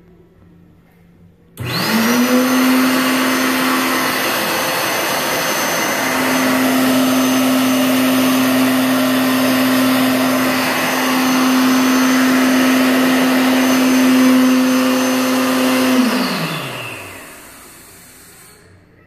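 World Dryer SlimDri hand dryer switching on about a second and a half in, triggered by hands held beneath it. Its motor spins up almost at once to a steady tone over a loud rush of air. It runs for about fourteen seconds, then shuts off, and the motor winds down with a falling pitch.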